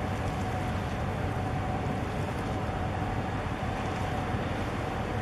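Steady boat engine drone with a thin, constant whine, mixed with wind on the microphone and rushing water.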